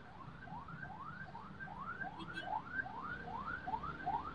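Car alarm sounding a rapid whooping pattern: short rising sweeps repeating about two and a half times a second, growing slightly louder.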